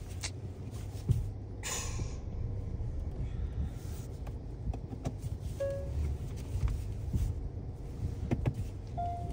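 Steady low rumble of a car's engine and tyres heard from inside the cabin while driving, with a few light clicks and a short swish about two seconds in.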